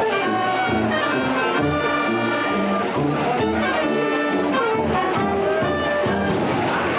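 Street wind band playing a tune together: brass, saxophone and clarinets holding melody and harmony over a sousaphone bass line, with a steady bass-drum beat.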